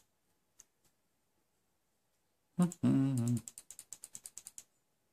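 Light plastic clicks as a dropper bottle of e-liquid is squeezed and worked against a Kayfun clone atomizer's tank while filling it. About two and a half seconds in there is a short hummed note, then a quick run of clicks.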